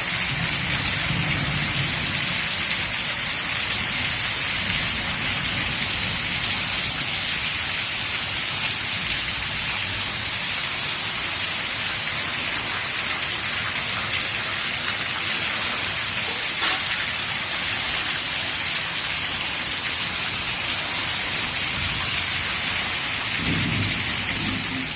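Heavy rain falling steadily, a dense even hiss. Low rumbles come at the start and again near the end, and there is a single sharp click about two-thirds of the way through.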